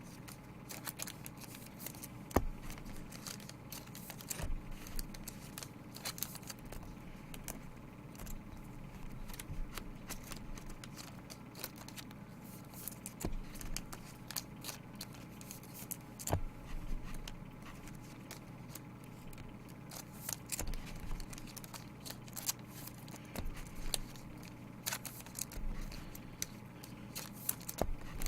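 Trading cards and their plastic packaging being handled: a running series of small crinkles, snaps and clicks over a steady low hum.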